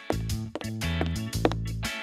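Upbeat background music with a steady beat and plucked guitar.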